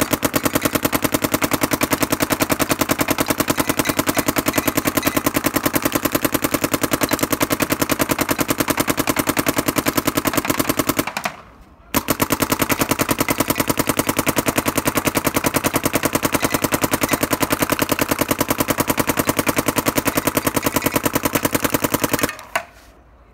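Planet Eclipse GTEK 170R paintball marker firing a rapid, even stream of shots in two long strings, with a short break about eleven seconds in.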